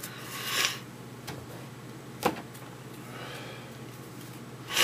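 Baseball cards handled and laid onto stacks on a table: brief rustles of card stock, a sharp tap a little past two seconds in, and a short sniff near the end.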